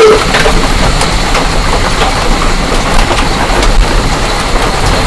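Hail falling hard: a dense, steady clatter of hailstones striking hard surfaces, with many small separate ticks.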